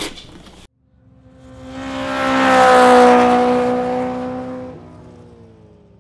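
Race-car pass-by sound effect: an engine note that swells up to a peak about three seconds in, drops slightly in pitch and fades away.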